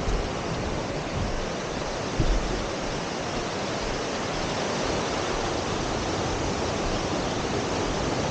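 Steady rushing noise of surf breaking on the beach mixed with wind on the microphone, with no clear engine tone. A brief low knock about two seconds in.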